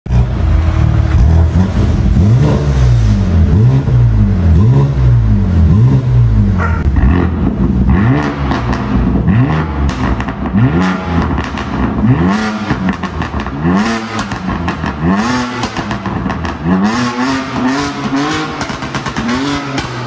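BMW G82 M4's twin-turbo straight-six revved in short, repeated throttle blips through a Fi Exhaust valvetronic catback with catless downpipes and its exhaust valves open. The pitch rises and falls about once a second, and the later blips climb higher.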